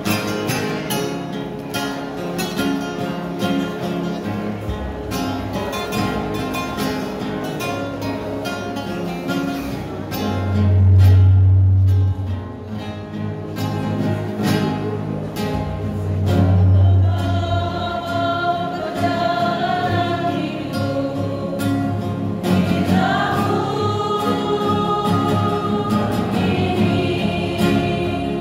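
Choir singing a gospel song over instrumental backing with a steady beat. A deep bass note swells twice midway, and the voices stand out more in the second half.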